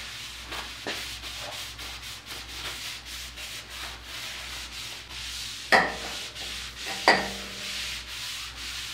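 Cloth rag rubbing in quick back-and-forth strokes over the steel top of a surface grinder's magnetic chuck, wiping grit off it. About six and seven seconds in come two sharp knocks on metal that ring briefly.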